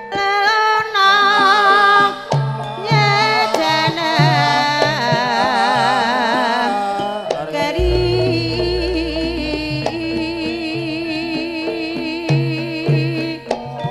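Javanese gamelan music accompanying ledek dancing: a singer's voice with strong vibrato over steady pitched metallophone tones and a hand drum beating a repeating low pattern, with a deep low note held for about two seconds about eight seconds in.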